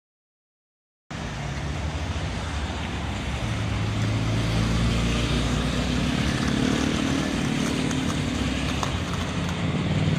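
Busy city street traffic: cars and motorbikes driving past with their engines running, under a steady low engine drone that grows stronger about four seconds in. It starts after about a second of silence.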